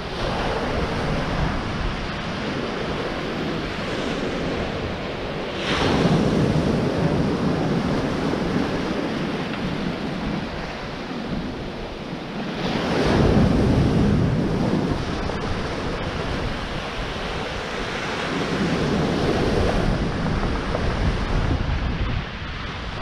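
Waves breaking and washing up a pebble beach, with three loud surges about six, thirteen and nineteen seconds in.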